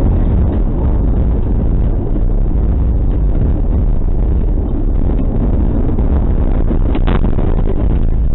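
Steady low rumble of a vehicle heard inside its cabin through a dashcam microphone, with a short brighter hiss about seven seconds in.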